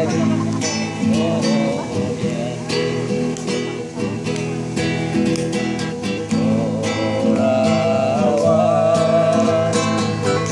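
Background music led by a plucked acoustic guitar, with a wavering melody line over it.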